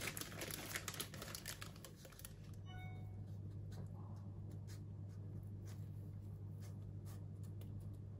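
Metal spoon scraping and clicking against a glass mixing bowl as thick cake batter is scooped, busiest in the first two seconds. Then come sparse soft clicks and rustles as the batter is piped from a bag into paper cupcake liners, over a steady low hum. A short ringing note sounds about three seconds in.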